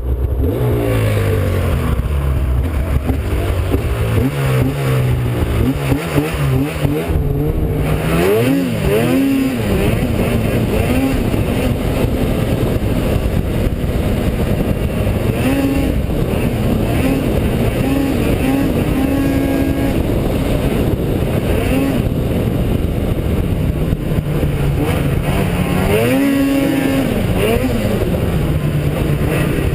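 Arctic Cat XF 800 snowmobile's two-stroke twin engine running under way, its pitch rising and falling again and again as the throttle is worked, over a steady rush of noise.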